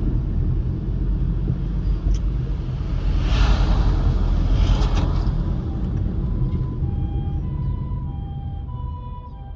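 Low traffic rumble, with a vehicle passing loudly about three to five seconds in. About seven seconds in, an ambulance's harmonic two-tone siren comes in, alternating a high and a low tone about once a second.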